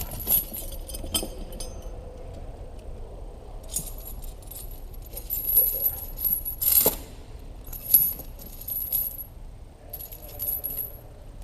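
Steel tire chain links jingling and clinking in several short spells as the chain is handled and laid over a tire, with one louder clank a little past the middle.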